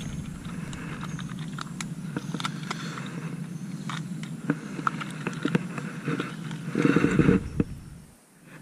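Steady wind rumble on the microphone, with many small clicks and rustles from handling. A louder gust or rustle comes about seven seconds in.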